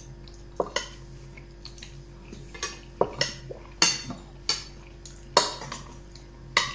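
Metal spoon and fork clinking and scraping against a glass baking dish while food is scooped up: about ten short, sharp clinks at irregular intervals.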